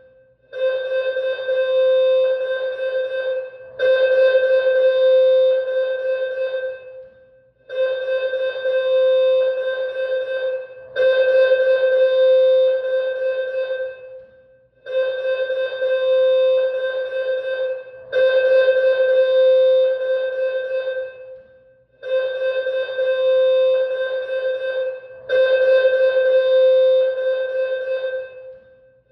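Electronic school alarm tone looping: a steady pitched tone with bright overtones, sounding in two-part phrases, the second part louder, that repeat about every seven seconds with a brief gap between repeats.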